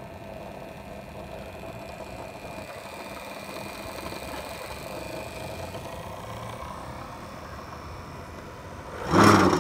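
Small sewing-machine motor on a homemade drill press running steadily, spinning a drill chuck and bit that runs off-centre. About nine seconds in, a short loud clatter.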